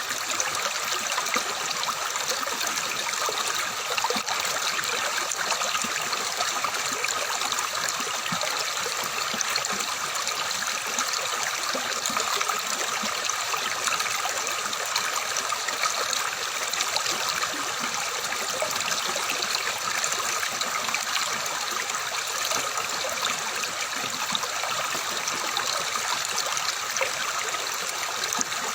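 Water flowing and splashing steadily in a stream, a continuous babbling trickle with no break.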